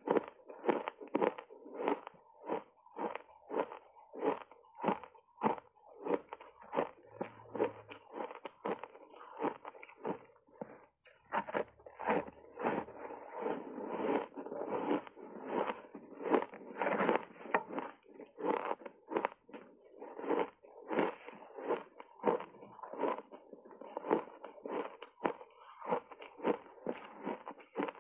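Block ice coated in matcha and milk powder being crunched and chewed in the mouth: a steady run of crunches about two a second, packed closer together through the middle.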